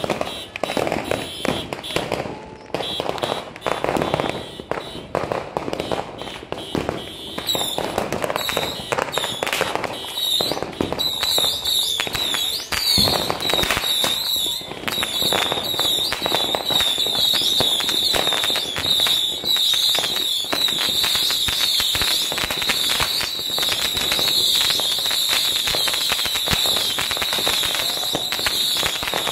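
Firecrackers and fireworks going off close by in rapid, irregular bangs and crackles. They thicken into a near-continuous crackle about a third of the way in, with a high wavering whistle over it from there on.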